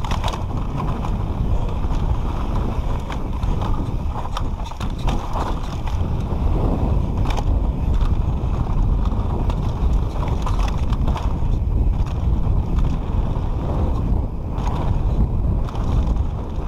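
Mountain bike ridden fast down a dirt trail: tyres rumbling over the dirt and wind buffeting the microphone, with the bike clicking and rattling over the bumps.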